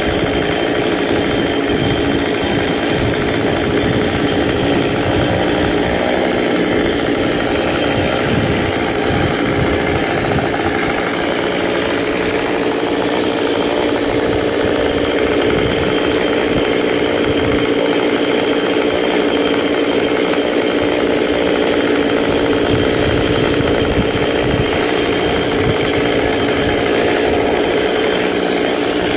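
Chainsaw engine running steadily at a constant pitch, with no break.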